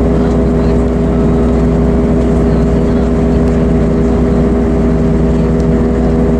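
Scania diesel engine of an Ikarus EAG 395 coach running at steady revs while the coach is under way, heard from inside, over a haze of road noise.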